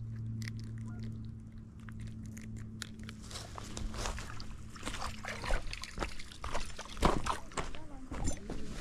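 Water sloshing and splashing with scattered clicks and knocks of handling. A steady low hum fades out after the first few seconds.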